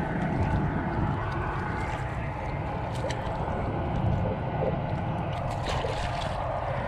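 Sea water lapping and splashing against shoreline rocks, with a steady low wind rumble on the microphone. Near the end come a few sharper splashes and clicks as a caught fish is lifted out of the water by hand.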